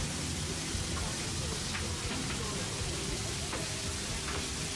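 Food sizzling on a hot cooking surface: a steady hiss with scattered small crackles over a low hum, with faint voices in the background.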